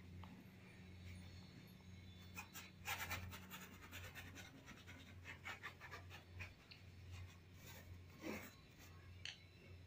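Faint scratching of paintbrush bristles dragging acrylic paint across canvas, a run of short strokes around the middle and a couple more near the end, over a low steady hum.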